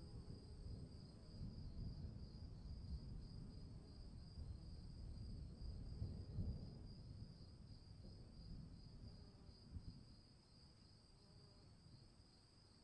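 Crickets trilling steadily in a high, pulsing chorus over a low thunder rumble that swells and then dies away about ten seconds in.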